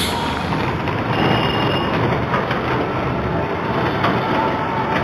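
Steady rushing noise of wind and road noise while riding a two-wheeler along a street, with no clear horn or voice.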